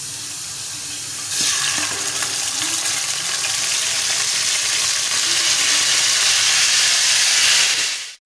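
Hot oil sizzling on a tawa griddle; about a second in, wet yogurt-marinated chicken pieces drop into the oil and the sizzle jumps to a loud, steady frying hiss. It stops abruptly near the end.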